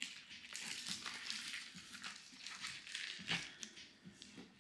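Packaging rustling and crinkling as foil bubble mailers and envelopes are handled, with a few light taps.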